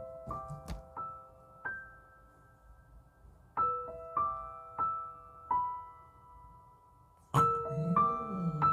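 Gentle piano background music: a slow melody of single struck notes that ring on and fade, played in three short phrases with pauses between them.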